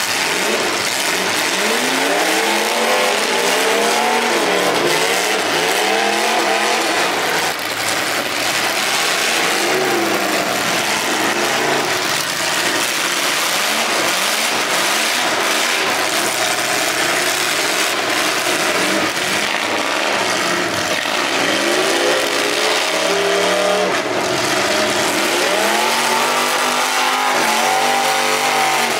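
Demolition derby cars' engines revving up and falling back again and again, several at once, over a steady rush of noise.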